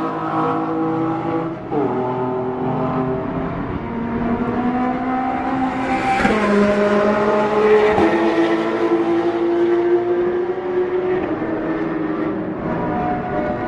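Race and sports car engines accelerating on a circuit, the engine note climbing steadily and dropping sharply at upshifts about two, six and eight seconds in.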